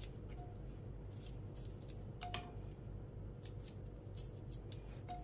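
Green chillies being cut by hand over a pot of dal: a few faint, scattered snipping clicks, over a low steady hum.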